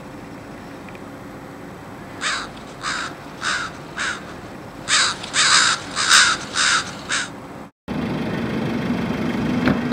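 A crow cawing: four caws about half a second apart, then after a short pause a run of five more, over a steady background hum. Near the end the sound cuts abruptly to louder steady outdoor noise.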